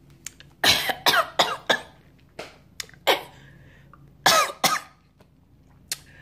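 A woman coughing hard in short fits and clearing her throat, after a swig of undiluted apple cider vinegar that burns her throat. There are about four quick coughs near the start, a few more around the middle, and two more later.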